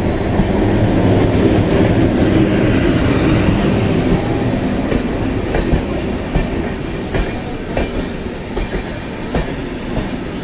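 Passenger train coaches rolling past at close range: a steady rumble of wheels on rails, louder in the first half, with a scattering of sharp clicks from the wheels over rail joints later on.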